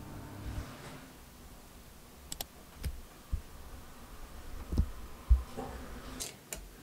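Washing machine running, with scattered low thumps and a few light clicks over a low steady hum.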